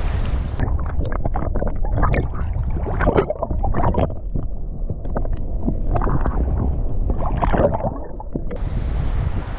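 Muffled underwater sound from a submerged camera: a low rumble of moving water with gurgling and scattered crackles, starting about half a second in and ending about a second before the end. Before and after it, wind buffets the microphone above the sea.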